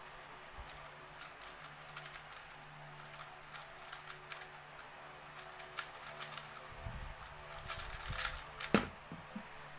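Rubik's cube being turned by hand: a run of quick, irregular plastic clicks and clacks, getting busier and louder near the end, with one sharp clack shortly before the end.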